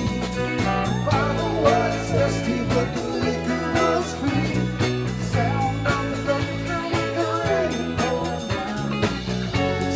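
Live rock band playing a song: a man singing over electric guitars, electric bass, keyboards and a drum kit.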